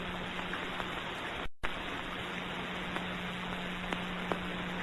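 Steady hiss and a low hum from an early optical film soundtrack, with a few faint clicks. The sound cuts out completely for an instant about a second and a half in.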